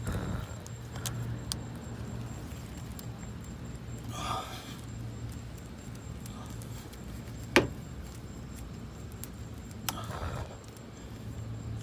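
A tyre plug insertion tool being worked back out of a tubeless tyre's tread, with scattered small handling and rubbing noises over a steady low hum. A sharp click about seven and a half seconds in is the loudest sound, and a fainter one comes near the end.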